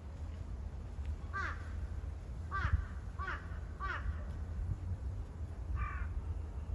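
A crow cawing five short times, the first four in a quick run and the last, slightly different one near the end, over a steady low rumble of wind on the microphone.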